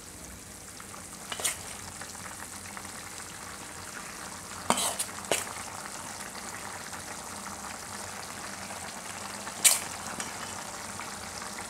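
Spinach and tomato gravy bubbling steadily in a kadhai as roasted gram flour is sprinkled over it, with a few sharp clicks of a steel spoon against a steel plate, the loudest near the end.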